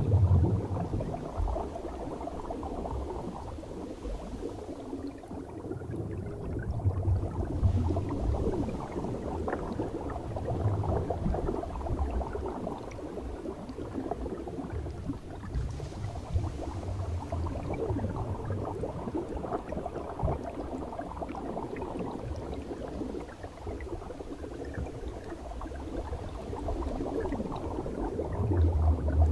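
Muffled underwater bubbling and gurgling of air escaping from helmet-diving helmets, heard through a camera's underwater housing, with low rumbles coming and going.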